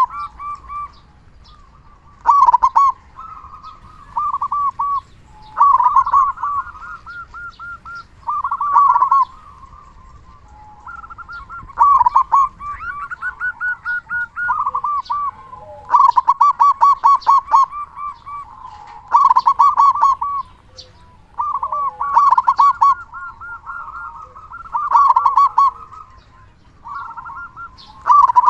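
Local zebra dove (perkutut) cooing loudly: phrases of quick, pulsed coos, mixing higher and lower notes, repeated about every three seconds.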